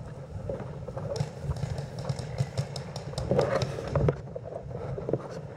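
Footsteps of a person moving quickly over grass, with rumble and rustle from the camera they carry. A run of sharp clicks comes about a second to two and a half seconds in.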